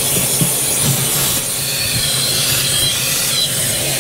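Wet/dry shop vacuum running steadily, sucking up loose soap-scale debris from the bottom of a washing machine tub; its hum cuts off at the very end.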